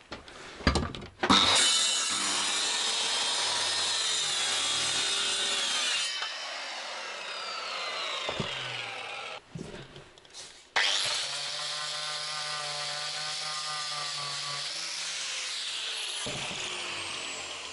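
Handheld electric circular saw cutting a plywood sheet in two passes, each about five seconds long. The saw starts sharply each time, runs steadily with a whine through the cut, then stops.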